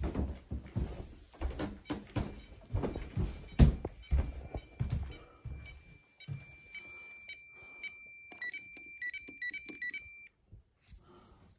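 Intruder alarm keypad beeping: a repeating high warning beep from about halfway through, then a quicker run of key-press beeps as the code is entered. The beeping stops about ten seconds in as the part-set alarm is unset. Before the beeps, footsteps and thuds on the stairs and wooden floor.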